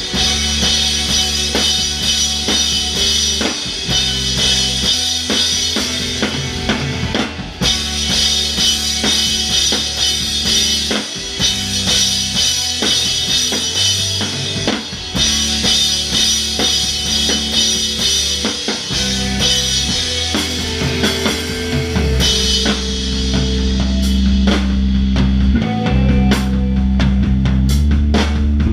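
Live alternative rock band playing, heard close from the drum kit: a Ludwig drum kit with bass drum, snare and heavy cymbal wash over bass and guitar. About two-thirds of the way through the cymbal wash stops and the low bass and guitar swell, with single sharp drum hits standing out.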